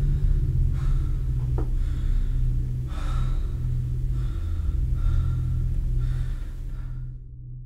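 Heavy, ragged gasping breaths, about one a second, from a young man lying on the floor, over a loud low droning film score. The sound cuts out about seven seconds in.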